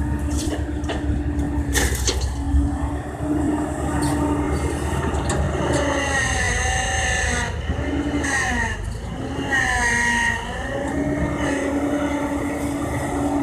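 Kobelco excavator's diesel engine running steadily, a sharp knock about two seconds in. From about six seconds the engine and hydraulic tones dip and rise under load for a few seconds before settling back to the steady note.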